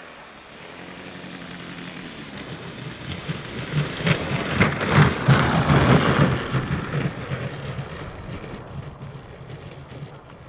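PD-1 fixed-wing drone's 100 cc engine and propeller running as the aircraft lands and rolls past on its wheels, growing louder to a peak around the middle and then fading as it moves away.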